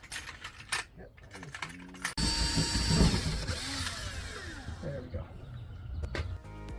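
Power drill with a 3/8-inch bit boring out a hole. It starts suddenly about two seconds in, after a few clicks and handling knocks, runs steadily with a high whine, and stops shortly before the end.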